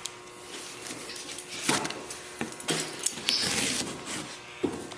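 Cardboard shipping box being handled and worked open: irregular scraping and rustling, with a sharp knock near the end.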